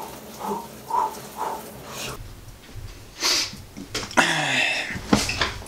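A man's short pitched yelps, about three in the first two seconds, then harsh breathy gasps: his reaction to cold shower water.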